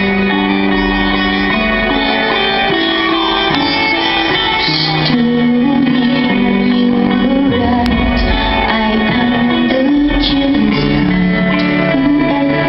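A rock band playing live, with guitar and a woman singing, in a low-quality concert recording with a dull, muffled top end.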